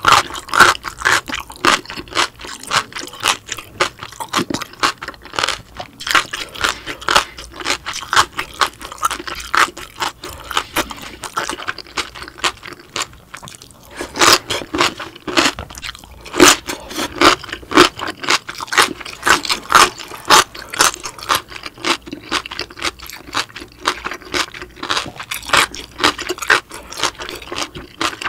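Close-miked crunching and chewing of spicy cucumber kimchi, a quick run of crisp crunches that pauses briefly about thirteen seconds in and then goes on.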